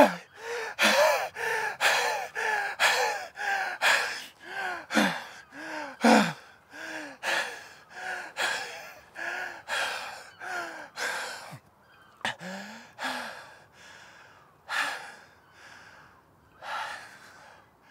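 A man's ragged, rapid gasping breaths with a voiced catch in each, about two a second at first. They slow and grow fainter after about twelve seconds, leaving a few single breaths near the end.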